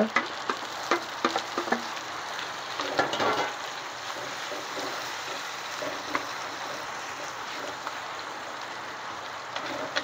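Onions and aromatics frying in hot oil in a wok: a steady sizzle, with a few sharp clicks of stirring in the first couple of seconds.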